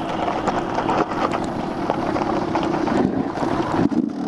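Dirt bike engine running steadily at low speed, mixed with wind noise on the microphone.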